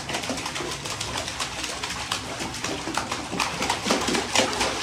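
Water splashing in a small inflatable paddling pool as children slap the surface with their hands: a quick, irregular patter of splashes and droplets.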